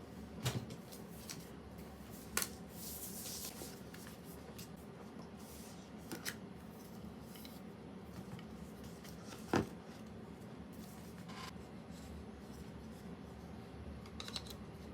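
Cardboard and paper packaging being handled and opened: scattered light taps and clicks, a short rustle about two to three seconds in, and one louder knock about nine and a half seconds in.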